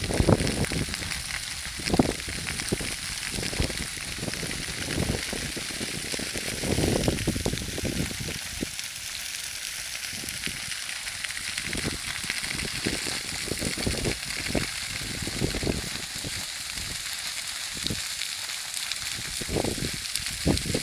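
Dry grass burning across a field, the flame front crackling and hissing steadily, with a low rumble every few seconds.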